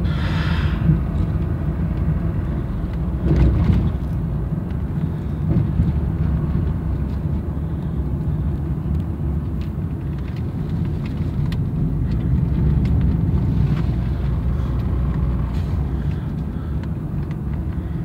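A car driving, heard from inside the cabin: a steady low rumble of engine and road noise, with a brief thump about three and a half seconds in.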